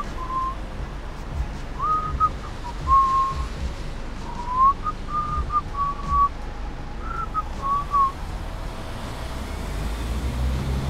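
A person whistling a tune: a string of short held and sliding notes that stops about eight seconds in, over a low rumble.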